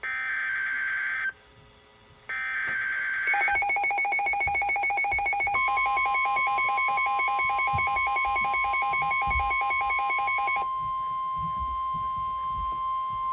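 NOAA Weather Radio alert: the last two buzzing SAME header data bursts, each about a second long, which open a new warning. Then a rapid pulsing electronic alarm beep, overlapped from a couple of seconds later by the steady 1050 Hz NWR warning alarm tone, which carries on alone once the beeping stops.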